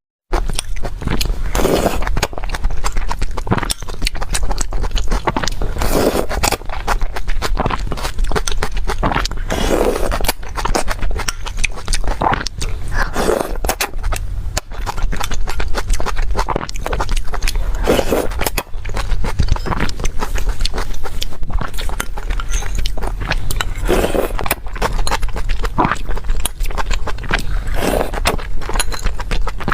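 Close-miked eating sounds: continuous chewing with small clicks and crackles and the scrape of a utensil, over a steady low hum.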